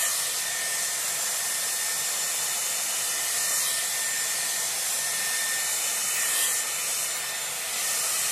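Dyson Airwrap running with its round brush attachment: a steady rush of air with a thin, high motor whine.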